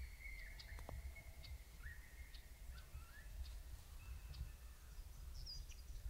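Faint outdoor ambience: a steady low wind rumble with scattered small bird chirps and tweets.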